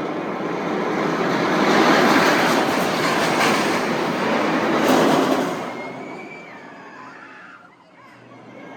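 Roller coaster train running along its track with a rushing rumble and some rattle. It swells, then fades away near the end as the train passes.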